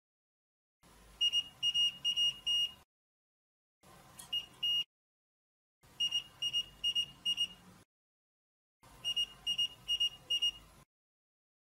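A digital multimeter's continuity beeper gives groups of short, high beeps, mostly four or five at a time, with pauses between the groups. The beeps come as a field-effect transistor hidden-wiring detector on the probe terminals picks up interference from live mains wiring: its channel resistance drops and sets off the continuity test.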